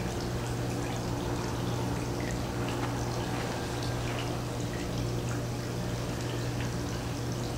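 Steady low hum under an even hiss, with scattered faint ticks.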